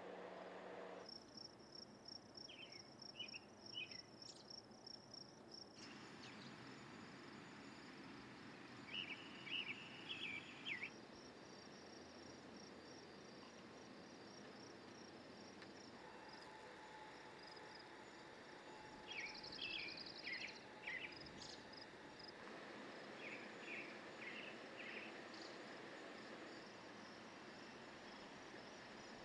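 Quiet outdoor ambience: small birds chirping in short clusters several times, over a faint steady high insect trill. A low hum stops about a second in.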